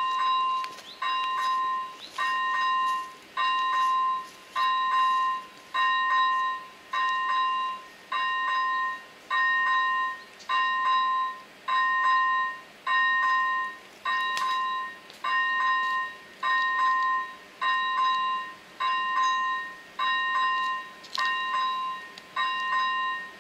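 ZV-01 electronic level-crossing bell sounding its warning: an even, repeated ding, about one stroke a second, each note ringing briefly before the next. It signals that the crossing has been activated for an approaching train.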